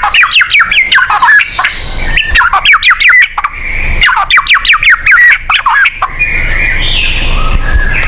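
White-rumped shama (murai batu) singing: three quick runs of rapidly repeated sweeping whistled notes, then a harsher, buzzy phrase near the end, over a faint low rumble.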